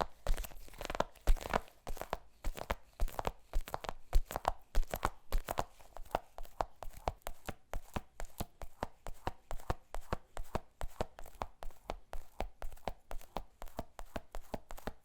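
A sticky slime ball being squeezed and pulled apart, making a quick run of sticky crackling clicks, about four a second; louder and more irregular at first, then evening out.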